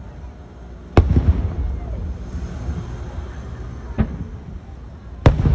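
Aerial firework shells bursting overhead: three sharp booms, about a second in, at four seconds and near the end, the first the loudest, each trailing off in a low rumble.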